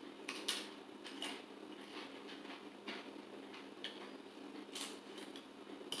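Soft, irregular crunches of a thin veggie-and-flaxseed corn tortilla chip being chewed, a short crisp crack every half second to second.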